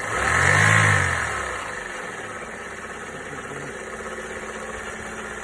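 Chevrolet Aveo's F14D3 1.4-litre four-cylinder petrol engine revved once, its note rising and falling back over about a second and a half, then running at idle with a steady knocking and rattling, which the owner calls a terrible knock and clatter.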